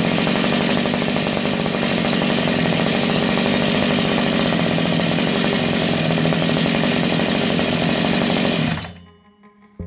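Freshly rebuilt Zenoah G45L two-stroke brush cutter engine running steadily on a stand, then shut off near the end, its sound dying away within a fraction of a second.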